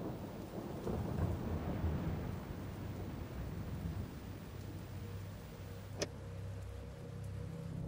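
Steady rain falling, with a low rumble of thunder in the first couple of seconds. A single sharp click about six seconds in, and a steady low hum coming in near the end.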